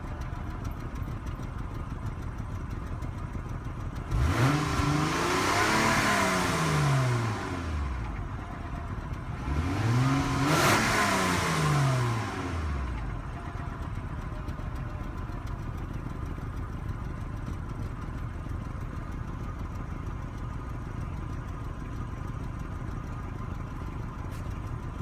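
2002 Acura TL V6 engine idling, revved up twice and let fall back to idle. The owner is checking it for a rough idle and a knock.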